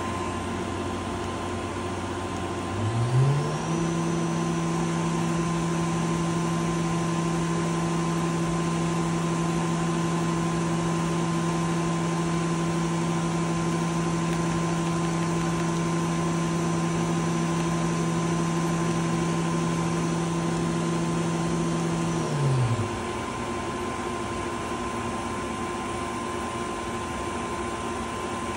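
Citizen L12VII CNC Swiss-type lathe spindle running with a steady whine. About three seconds in it speeds up to 10,000 rpm, the whine rising quickly in pitch. It holds there for about twenty seconds, then slows back down to around 5,000 rpm with a falling whine.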